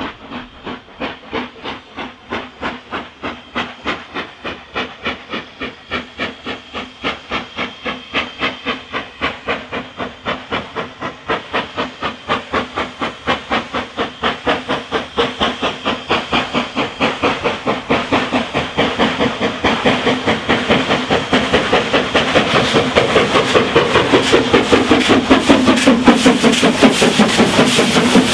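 Two-cylinder BR Standard Class 4 4-6-0 steam locomotive 75078 working a train, its exhaust beating in an even rhythm with a hiss of steam. The beats grow steadily louder as it approaches and are loudest near the end, when it passes close by.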